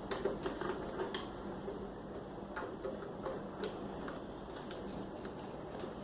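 Faint, irregular clicks and taps of a power cable's plug being handled and fitted into the back of a thermal receipt printer, over a low steady hum.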